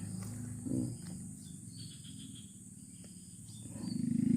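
Faint insect chirping, crickets, over a low steady hum. Near the end a motorcycle engine approaches and grows quickly louder.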